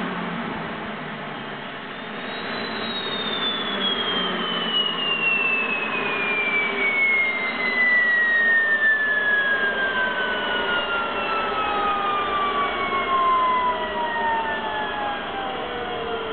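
Lucas APU gas turbine winding down after shutdown: a high whine that falls slowly and steadily in pitch over a rushing noise.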